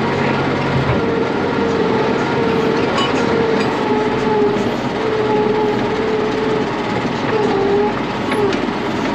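Engine of a heavy machine running steadily, with a whine that wavers up and down in pitch.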